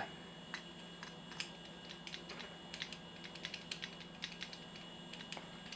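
Thin probe tapping and clicking irregularly against the closed safety shutter of a UK mains socket, the shutter blocking it from reaching the contacts.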